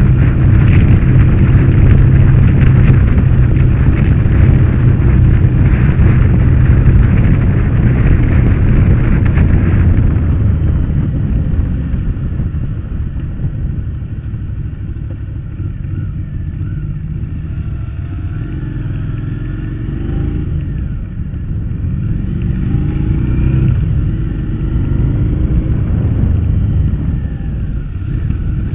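Motorcycle riding on the road, heard from a camera mounted on the bike: a steady engine drone with wind rush. It is loud for about the first ten seconds, then quieter, with the engine note rising and falling a few times.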